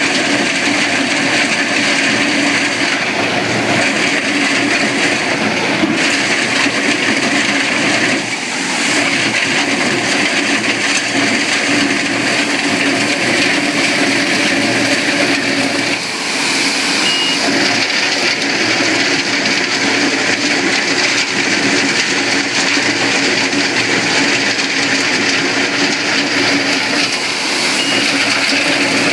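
Takeuchi TL12R2 compact track loader running steadily with its trencher attachment cutting, a continuous loud grinding, rushing machine noise over a steady engine hum. The level dips briefly twice, about 8 and 16 seconds in.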